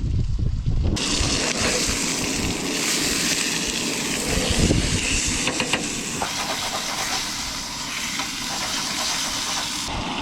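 Steady hissing from camp-stove cooking starts suddenly about a second in, with a few faint crackles, and stops abruptly just before the end. Wind rumbles on the microphone before the hiss begins.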